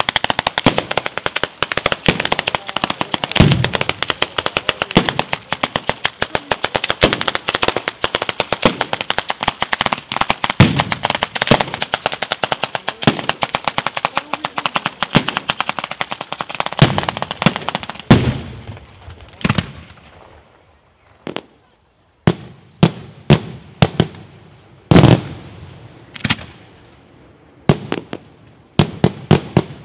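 Fireworks at ground level: a dense barrage of firecracker cracks and bangs that starts suddenly and thins out after about eighteen seconds. After a short lull, single loud firework bangs come a second or two apart.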